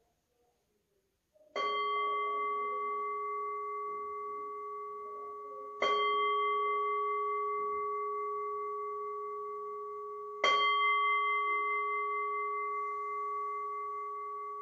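Black metal bowl bell (Zen rin) struck three times with a wooden striker, about four to five seconds apart, each strike ringing on in steady tones that fade slowly. These are the three bells that open a period of zazen.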